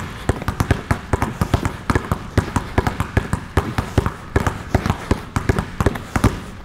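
Three basketballs dribbled hard and low on a hardwood court, in place, between the legs and crossing over: quick sharp bounces, several a second, falling out of step with one another.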